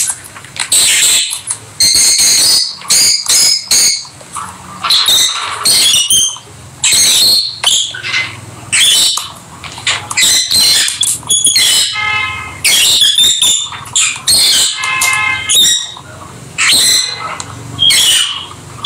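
Several rosy-faced (peach-faced) lovebirds chattering: a loud, continuous stream of rapid, high-pitched chirps and squawks, with short buzzy trills about 12 and 15 seconds in.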